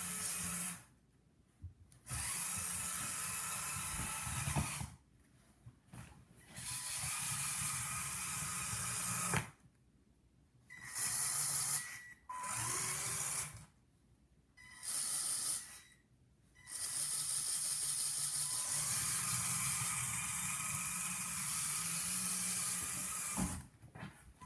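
Lego Power Functions L motor and its gear train in an RC car, whining steadily in bursts as the throttle is applied and released. It starts and stops about seven times with short quiet gaps, and the longest run comes near the end.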